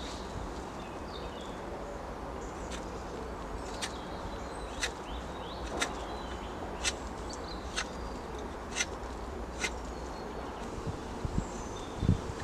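Knife shaving a wooden bow-drill spindle: short scraping strokes, about one a second.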